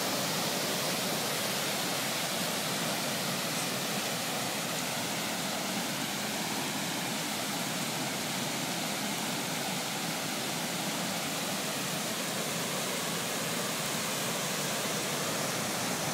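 Creek in flood, fast high water rushing steadily.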